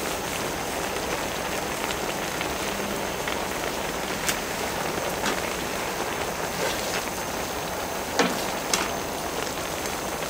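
Pork and kimchi stew boiling steadily in a cast-iron cauldron-lid pan (sotttukkeong), a continuous bubbling sizzle. A few sharp clicks break through, one about four seconds in and two close together near the end.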